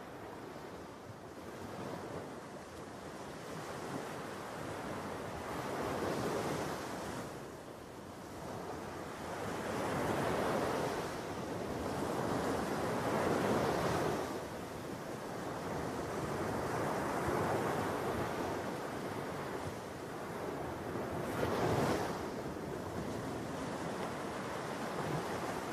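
Sea surf breaking on a sandy beach: a steady rush that swells with each wave every three to four seconds, fading in over the first few seconds.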